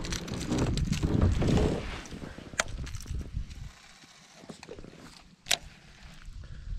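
Kayak on the water: a low rushing noise, loud for the first two seconds and then settling, with two sharp clicks or knocks later on.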